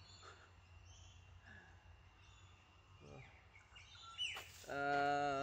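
Birds chirping faintly over a low steady background hum, with a falling bird call about four seconds in. Near the end a man's voice starts up, louder than everything else.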